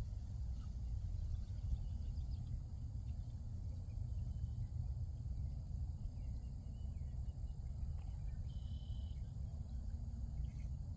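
A steady low rumble with faint insect chirping and short calls over it, and a brief higher-pitched call about eight and a half seconds in.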